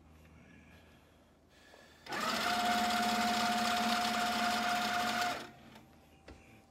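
Handi Quilter Sweet Sixteen mid-arm sewing machine stitching in one steady run of about three seconds. It starts suddenly about two seconds in and stops just as suddenly, while the fabric is moved by hand under the stationary needle along a ruler.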